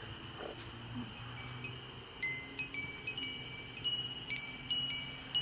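Wind chimes ringing in the wind, clear metallic notes sounding one after another at several pitches, over a faint low steady hum.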